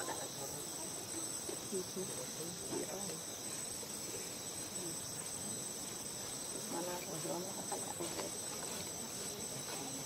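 Insects droning steadily at one high pitch, with faint, indistinct voices murmuring underneath.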